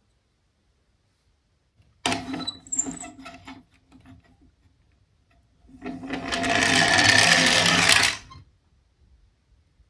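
Toy minicar rolling down a slope, its wheels rattling on the track: a short clattering run about two seconds in, then a louder, steady whirring rattle for about two seconds that stops abruptly.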